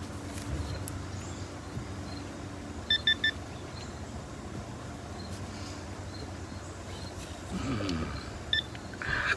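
Metal detector beeping: three quick high beeps about three seconds in, and one more near the end, signalling metal under the coil.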